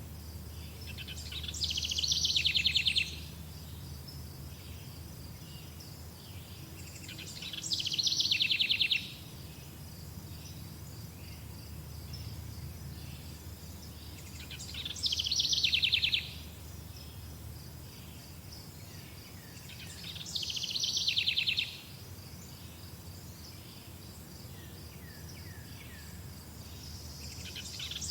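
A songbird sings the same short song five times, about every six and a half seconds. Each song starts high and falls into a fast, buzzy trill. A steady, high, pulsing insect-like trill and a low rumble carry on underneath.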